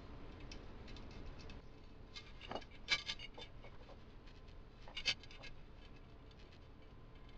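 Loose steel bicycle spokes clicking and clinking as they are handled and threaded through the rim and the hub motor's flange, with two louder clinks about three and five seconds in.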